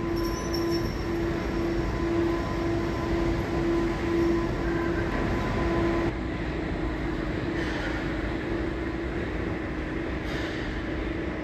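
Newark AirTrain monorail car standing at the station: a steady hum under a low electronic beep that repeats about twice a second. About six seconds in the beeping stops abruptly and the overall sound drops to a quieter steady hum.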